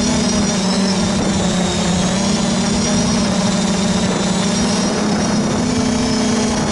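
Quadcopter's Sunnysky 2212 1400Kv brushless motors spinning 8-inch props, a steady buzzing drone whose pitch wavers slightly up and down with throttle, over a rushing hiss, heard from a microphone on the craft itself.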